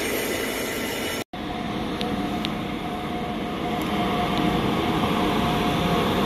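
The tail of a container freight train rumbling past, cut off abruptly about a second in. Then a GBRf Class 92 electric locomotive hauling sleeper coaches moves slowly past with a steady rumble and a held mid-pitched hum from the locomotive, with a few faint clicks.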